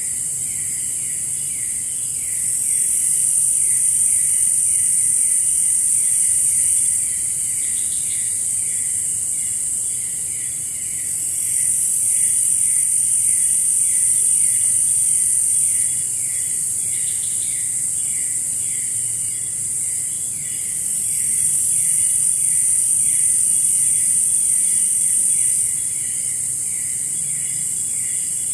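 Forest insect chorus: a continuous high buzz that swells and fades in long waves, three louder stretches, over a steady rhythm of short chirps repeating a few times a second.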